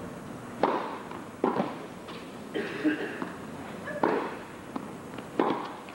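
Tennis ball struck by rackets during a rally: a serve followed by returns, a series of sharp pops about a second or more apart, each with a short echo of the hall.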